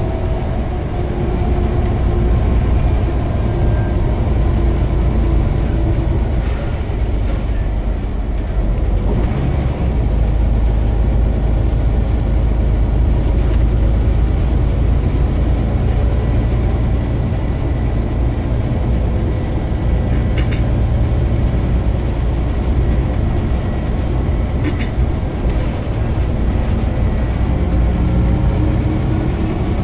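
Scania CN94UB Omnicity single-decker bus on the move, heard from inside the passenger saloon: a steady diesel drone and road rumble, with a couple of small clicks in the second half.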